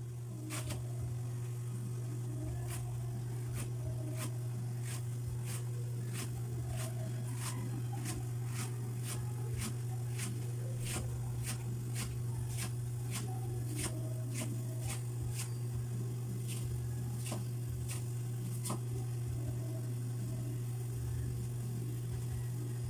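Broth simmering in an aluminium pan around blocks of rice vermicelli noodles, giving irregular sharp pops and crackles about once or twice a second over a steady low hum.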